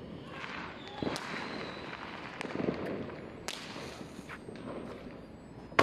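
Distant fireworks and firecrackers going off across the city: scattered sharp cracks, clearest about a second in and at about three and a half seconds, over a continuous rumble of farther bangs.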